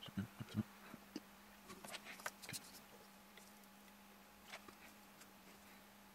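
Light clicks and soft knocks as a car engine-control unit's metal housing and circuit board are handled on a workbench, over a faint steady hum. The handling sounds thin out after about three seconds, with one more click later on.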